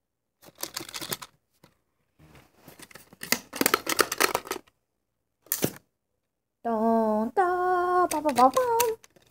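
Plastic clicks and rattles for the first few seconds. Then, about two-thirds in, a child's voice takes over, singing or humming long notes that hold steady and then waver and glide.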